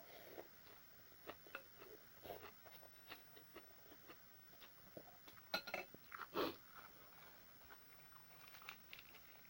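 A person chewing and crunching food up close: faint, irregular clicks and soft wet smacks, with a few louder bursts a little past the middle.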